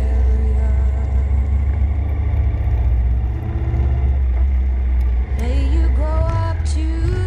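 Motorcycle riding at town speed: a steady low engine and wind rumble. About five seconds in, a song with a sung melody comes in over it.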